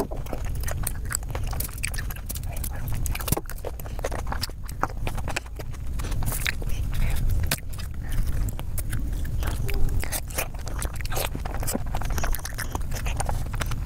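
Close-miked chewing and biting of juicy fresh fruit such as green grapes: many short wet crunches and mouth clicks throughout, over a steady low hum.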